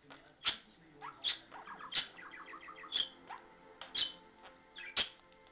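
Budgerigars chirping while mating: a sharp, short chirp about once a second, with a quick run of soft chattering notes from about one and a half to two and a half seconds in.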